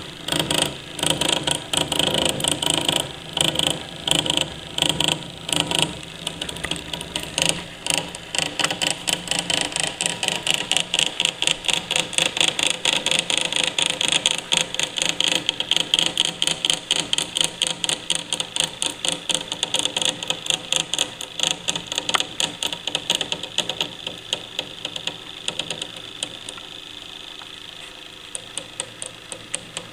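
Clockwork spring motor of a Pathé No. 34 gramophone running: its spinning governor and gear train make a rapid, regular mechanical ticking and whirring that grows fainter near the end. The owner says the governor's speed-regulating friction pads need replacing.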